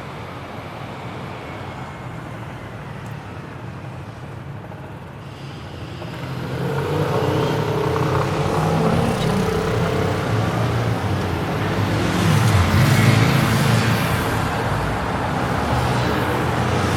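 Street traffic: a steady wash of road noise that grows louder about six seconds in as engines pass close by, loudest about two-thirds of the way through.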